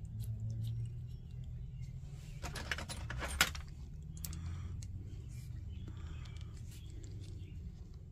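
Small metal parts clicking and clinking as the cleaned valve is fitted back into an old Bernz-O-Matic single-burner camp stove. The clicks are scattered, with a tight cluster about two and a half to three and a half seconds in.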